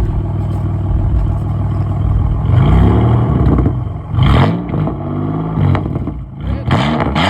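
Pontiac engine with its catalytic converters removed (catless exhaust) on a new tune, idling and then revved several times from about two and a half seconds in, each rev climbing and dropping back; loud.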